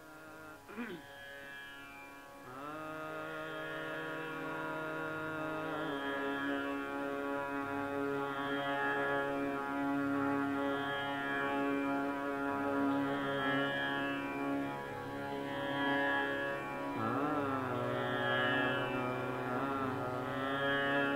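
Hindustani classical singing: a male voice in Raag Kafi Kanada holding long notes with slow slides and wavering ornaments over a steady drone, growing louder over the first few seconds.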